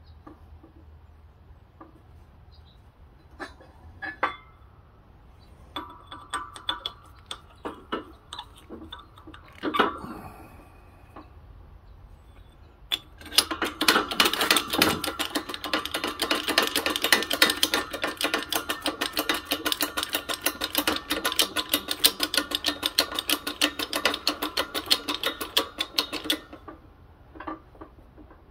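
A new bearing being tapped into a scooter transmission case with a hammer, metal on metal: scattered knocks and clinks at first, then from about halfway through a long run of quick, even strikes, about five a second, each ringing on.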